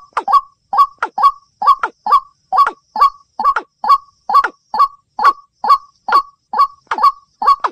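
Rail calls from a bird-lure recording made for watercock and white-breasted waterhen: a loud, short, downward-sweeping call note repeated evenly about twice a second.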